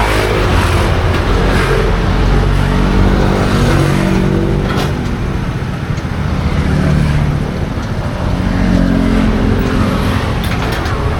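Motor vehicle engines running in street traffic, a steady loud mix of engine hum and road noise, with engine pitch rising and falling as vehicles pass.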